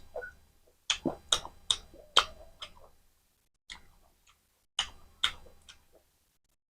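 Close-miked eating sounds: wet mouth clicks and chewing of mutton curry and rice, in two runs of quick, sharp clicks with a short pause between.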